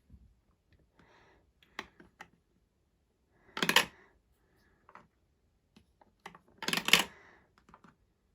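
Marbles clattering and dropping onto plastic Duplo-compatible marble run track pieces: scattered single clicks, with two loud bursts of rapid clattering, one a little before halfway and one near the end.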